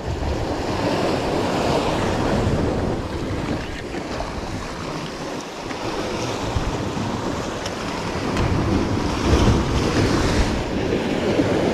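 Sea surf surging and breaking against rocks below, with wind buffeting the microphone in a heavy, uneven rumble that swells and eases.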